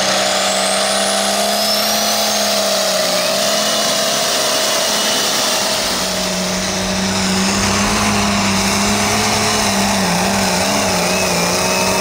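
Super stock pulling tractor's engine running hard under load during a pull, with a high whine over it. The engine's pitch sags a few seconds in, then wavers near the end.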